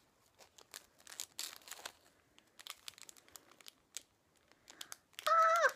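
Small plastic gift bag crinkling and crackling in the fingers as they pick at it to get it open, in sparse ticks with a denser patch about a second and a half in. Near the end a brief high-pitched vocal whine, dropping in pitch as it ends.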